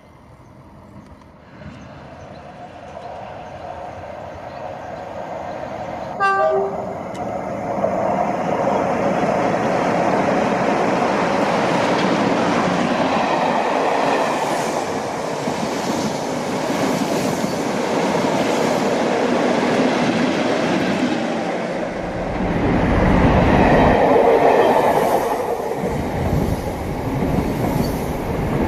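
A diesel locomotive sounds a short horn blast, then loco-hauled passenger trains run past, with the clatter of wheels over the rails. From about 22 seconds in a deep diesel engine rumble is the loudest sound as a locomotive passes close by.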